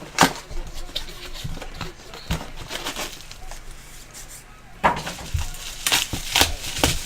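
Trading cards and their packaging being handled on a table: scattered taps, clicks and crisp rustling, busier from about five seconds in.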